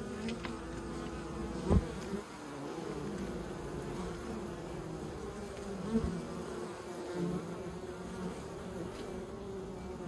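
A large colony of honeybees buzzing in a steady, wavering hum. There is a sharp low thump a little under two seconds in and a softer one near six seconds.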